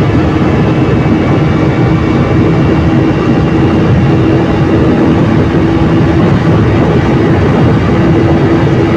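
KTM RC 200's single-cylinder engine on its stock exhaust running at steady revs while the bike is ridden, a steady drone with a constant pitch.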